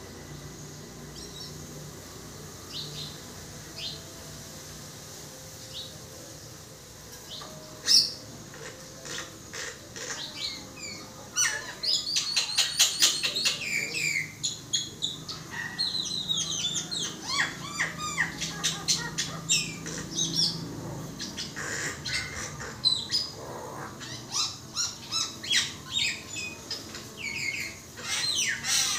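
Common myna calling: scattered short chirps for the first ten seconds or so, then a long, dense run of varied whistles, chatter and rapid clicking.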